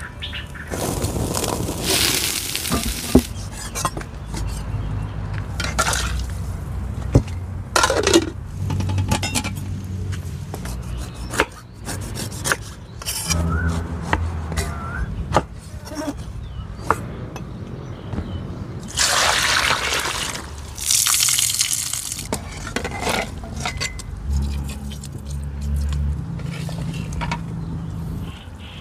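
Food preparation over a wood fire: water pouring in two long stretches, one about a second in and one about two-thirds through, between scattered knife and pot knocks, over a low steady hum.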